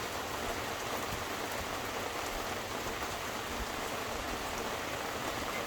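Steady rain falling, with the hiss of rain and fine patter of drops on hard surfaces.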